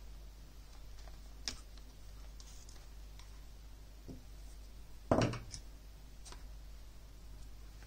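Small clicks and taps from a headset's plastic parts being handled: a sharp click about a second and a half in, a few faint ticks, and a louder short clatter about five seconds in. A steady low hum runs underneath.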